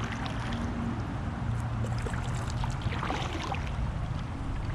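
Water lapping and splashing lightly against a plastic kayak hull, with small scattered ticks and a steady low rumble underneath.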